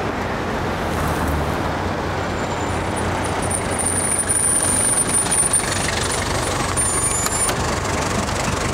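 Street traffic noise and a taxi's engine running close by as the cab pulls up, with a thin high whine from about three seconds in until near the end.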